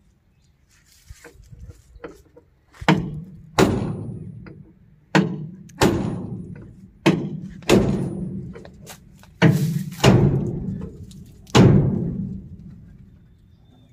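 A run of heavy, booming thuds, mostly in pairs about two-thirds of a second apart, each ringing out for about a second. Nine strikes, starting about three seconds in.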